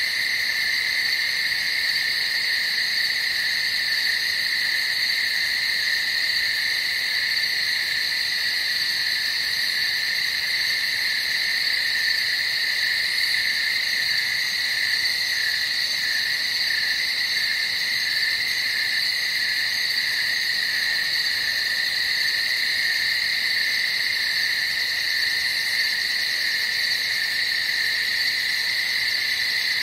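Steady night chorus of many calling frogs and insects, a dense, even, high-pitched sound with no pauses.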